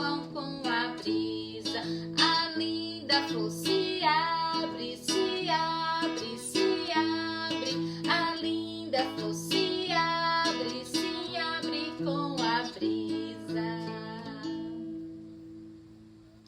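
A woman singing a children's song over strummed acoustic guitar or ukulele, with the music fading out over the last couple of seconds.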